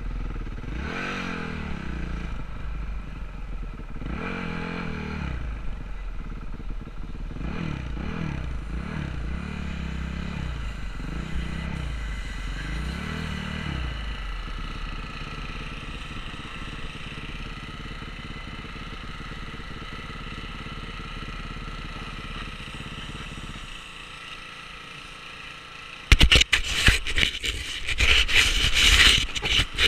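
Motocross dirt bike engines revving, pitch rising and falling again and again for about the first fourteen seconds, then settling into a steadier background. About 26 seconds in, loud scraping and knocking as the camera is picked up and handled.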